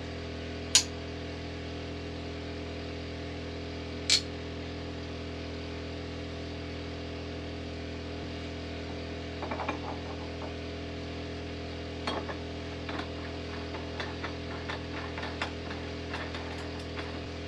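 Steady electrical hum throughout, broken by two sharp clicks a few seconds apart, then from about halfway a scatter of small knocks and rattles as a skin fitting is worked into place against the wooden hull planking.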